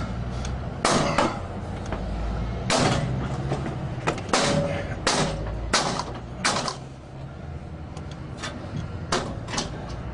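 Steel pry bar clanking against the lock stile of an Xpanda steel security gate as it is forced: about ten sharp metallic bangs, the loudest in the first seven seconds and weaker ones near the end, one ringing briefly.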